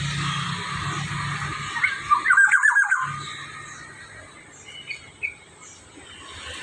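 Black-naped oriole giving a loud, harsh burst of about eight quick notes lasting about a second, a couple of seconds in, then two short fainter notes near the end.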